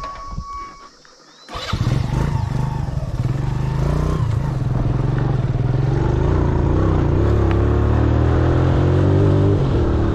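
A motor vehicle's engine running steadily. It cuts in abruptly about a second and a half in, and its pitch creeps up a little.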